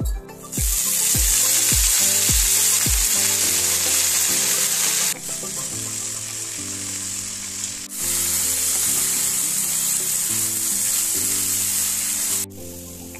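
Mint leaves sizzling loudly in a hot non-stick pan as they are stirred with a wooden spatula. The sizzle starts about half a second in, drops back for a few seconds in the middle, swells again and cuts off suddenly near the end.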